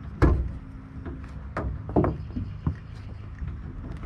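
A few sharp knocks, the first the loudest, over a low steady hum.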